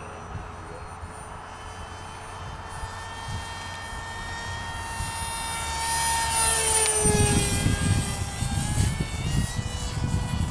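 Whine of an RC park-jet model's electric motor and propeller in flight, growing louder as it comes close, its pitch rising and then dropping as it passes about six to seven seconds in. A low rumble joins in as it goes by.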